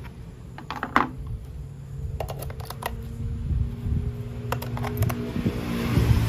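Irregular sharp plastic clicks and knocks from toy train parts being handled and fitted together, over a low rumble and a faint steady hum.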